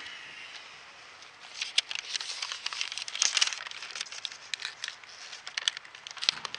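A sheet of paper crinkling and rustling as it is handled over the top of a beehive. Quiet at first, then a dense, rapid crackle from about a second and a half in.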